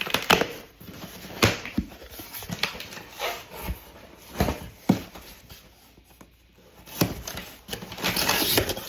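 A cardboard package being handled and opened by hand: scattered knocks, scrapes and handling noises, with a denser stretch of rustling near the end.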